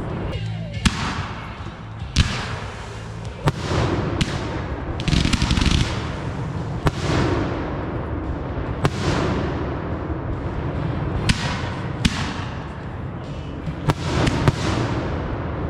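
Consumer aerial fireworks going off: about a dozen sharp bursting bangs, roughly one every second or two, each trailing off in an echo, with a stretch of crackling about five seconds in.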